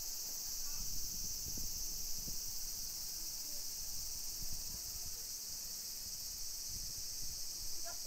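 Steady high-pitched insect chorus, with a few faint short bird chirps about a second in and again near the end, over light low thumps.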